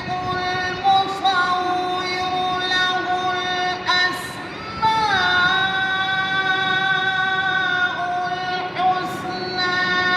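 Melodic Quran recitation: one voice chanting in long, ornamented held notes, with a brief break and a downward slide about four to five seconds in.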